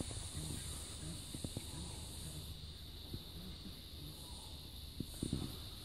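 Steady high-pitched insect chorus, with a few faint light taps.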